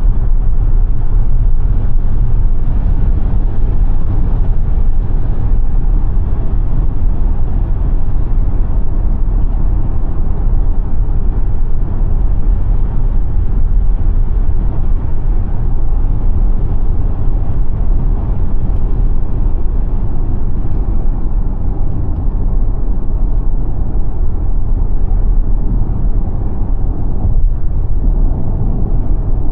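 Steady road and tyre rumble of the Xpeng G9 Performance electric SUV on the move, a low, even noise with no engine note.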